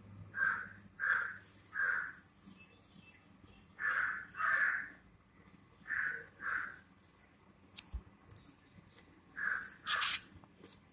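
Crows cawing: short calls in groups of two or three, about nine caws in all, with pauses between the groups.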